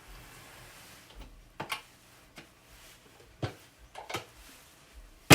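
Metal latches on a wooden Gerstner machinist's tool chest being unlatched: a few sharp clicks spaced about a second apart, and a much louder snap near the end.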